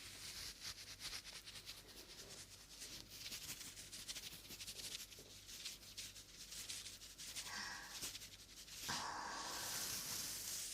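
Close-miked ASMR rubbing and scratching: a dense, fine crackle of tiny clicks with hiss. Two louder rushing sweeps come near the end.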